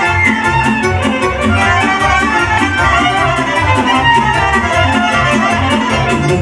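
A band playing a lively Romanian folk dance tune live, a violin lead carrying the melody over a fast, steady beat.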